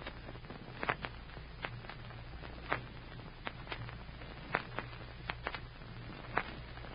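Faint hiss and low hum with scattered sharp pops and crackles, about one or two a second: the surface noise of an old 1940s radio transcription recording between programme segments.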